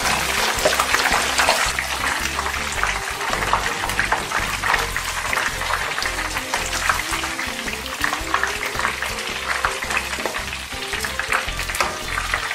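Sunflower oil sizzling around yeast-dough pastries deep-frying in a pot, a dense, steady crackle of many small pops.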